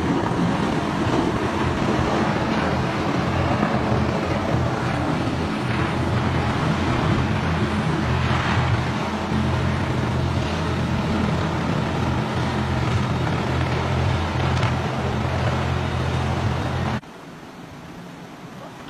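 Helicopter flying low overhead: a loud, steady rotor and engine noise with a deep throb. Near the end it cuts off suddenly, leaving a much quieter steady hiss.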